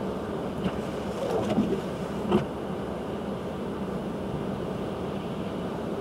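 Steady rush of strong storm wind and lake waves against a concrete breakwall, with wind buffeting the microphone. A few short splashes or knocks come between about one and two and a half seconds in, the loudest near two and a half seconds.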